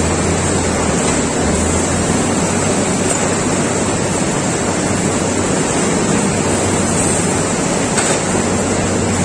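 Clay brick production line running: steady machinery noise from the conveyor carrying stacks of freshly cut hollow bricks, with a constant low hum and a couple of faint clicks in the second half.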